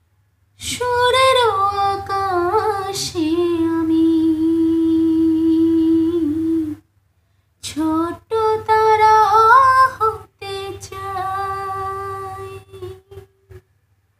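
A woman singing a Bengali song unaccompanied. The first long phrase ends in a note held for several seconds, and after a short break a second phrase rises and falls before trailing off near the end.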